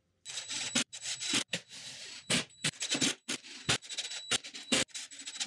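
Metal ball-bearing drawer slides rattling and scraping under a plywood platform as it is worked back and forth, in a string of short strokes with brief stops between them.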